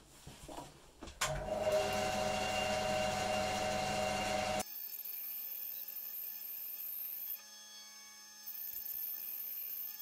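Bandsaw running and cutting through a wooden block: a steady machine whine with blade noise that starts about a second in. About halfway through, the sound changes abruptly to a quieter, thinner steady sound with the low end gone.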